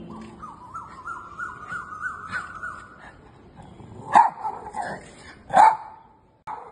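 Small spitz-type dog whining in a high, wavering, slowly rising tone for about three seconds, then barking twice loudly, about four and five and a half seconds in.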